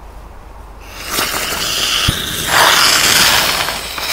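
A 'rose' ground-spinner firework with a bang burning in a toy truck's cab: a loud hiss of spraying sparks starts about a second in and grows louder about halfway through, with a few small pops.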